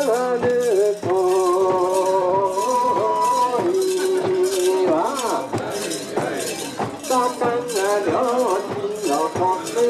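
Long, wavering held notes of a man's voice singing or chanting over a rhythmic metallic jingling, the sound of a mikoshi procession setting off.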